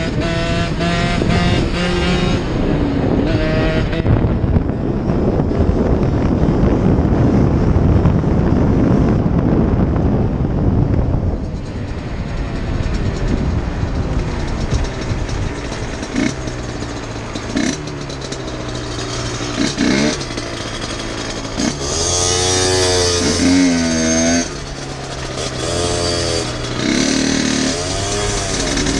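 Two-stroke HM dirt bike engine running while ridden, with wind rushing over the microphone at speed in the first part. From about halfway on, the engine revs up and down again and again as the bike slows and moves through traffic.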